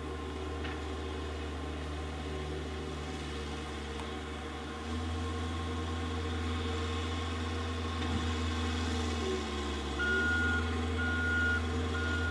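Engine of a heavy field machine running at a distance, a steady drone that grows louder about five seconds in. About ten seconds in, a backup alarm starts beeping, one steady-pitched beep about every second.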